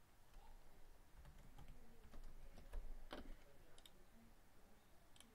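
Faint typing on a computer keyboard: a few scattered keystrokes, one a little louder about three seconds in.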